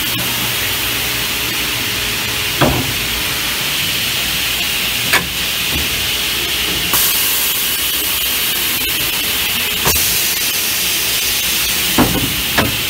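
Electric-motor-driven circular saw blade in an automated cutting machine, running steadily with a loud hissing cutting noise as it works through the material. Short sharp clicks come every two to three seconds.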